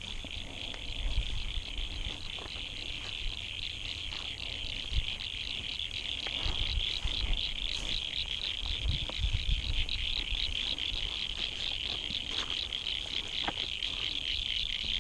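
A chorus of frogs calling from the water's edge: a dense, steady, high-pitched pulsing that never stops, with occasional low thumps on the microphone.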